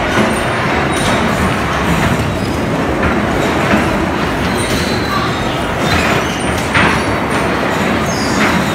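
Electric bumper cars running around the rink: a steady rumble of motors and wheels on the floor, with a few sharp knocks and clacks.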